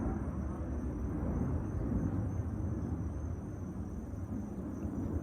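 Low, steady rumble of a B-2 Spirit bomber's four turbofan jet engines as it flies over.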